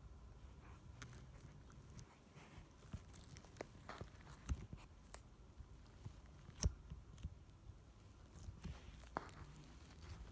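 Pink slime with sprinkles mixed in being handled, giving scattered small crunches and crackly clicks.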